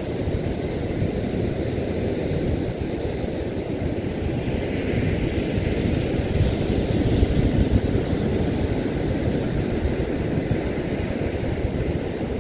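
Wind buffeting the microphone in a constant rumble, with the hiss of surf washing on the beach behind it.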